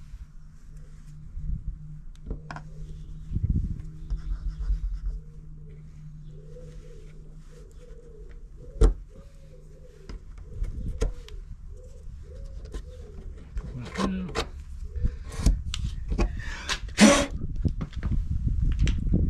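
Clicks, knocks and a short scrape of a screwdriver and a plastic end cap being worked loose from an aluminium rail, with one sharp click about nine seconds in and a busier patch near the end. Behind it, a pigeon coos in a steady repeated phrase through the middle.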